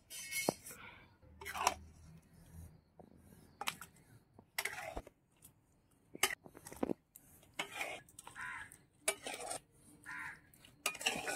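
Metal spatula scraping a metal pan and clinking against a stainless steel bowl as soya chunk curry is spooned out. The scrapes and clinks come irregularly, a dozen or so in all.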